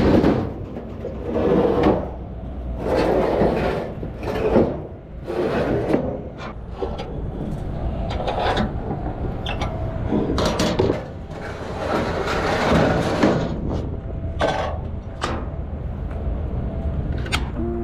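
Aluminium loading ramps being slid across a truck's load bed and stowed: repeated scraping slides with sharp metallic clanks and knocks in between.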